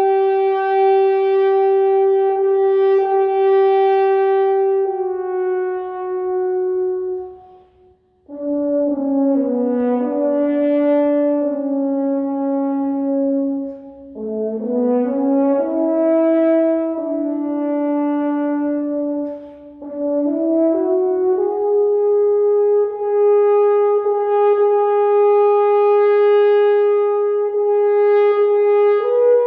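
Solo French horn playing a slow passage: a long held note that steps down and fades, a breath about eight seconds in, a lower, moving phrase in the middle, then a long held note rising a step near the end.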